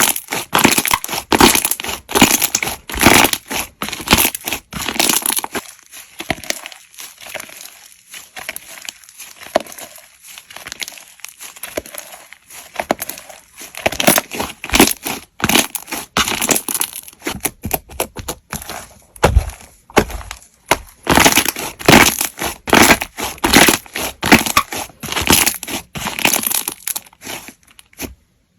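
Slime being squeezed and pressed by hand, giving dense crackling clicks that come in waves and stop abruptly near the end.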